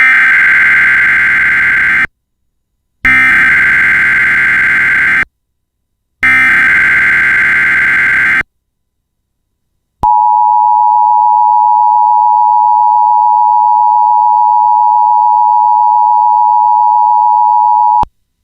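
Emergency Alert System header: three bursts of screeching SAME digital data tones, each about two seconds long with a second's pause between, which encode the alert. They are followed by the EAS attention signal, a steady two-tone 853/960 Hz sound held for about eight seconds.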